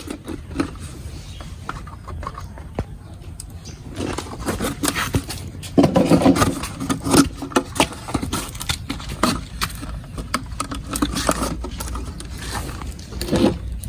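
Plastic bottle being handled and pierced with a heated metal rod, with irregular scraping and crackling of the thin plastic. A louder burst of sound comes about six seconds in.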